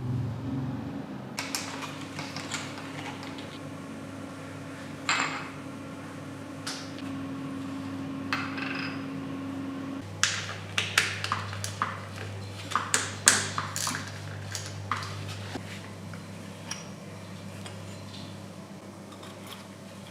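Metal engine parts and hand tools clinking and knocking against each other, in scattered taps that come thicker in the second half, over a steady low hum.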